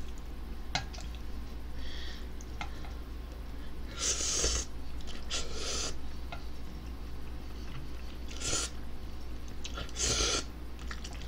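A person slurping instant ramen noodles in several short, sharp slurps, with quieter chewing between.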